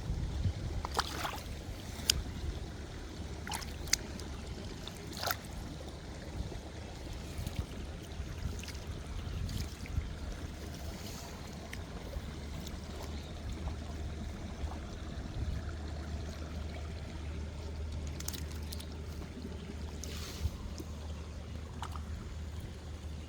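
Outdoor water sounds over a steady low rumble, with a few short splashes or knocks scattered through.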